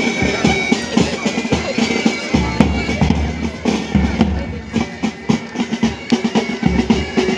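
Band playing march music: bass and snare drums beat a steady march rhythm under bagpipes holding sustained notes.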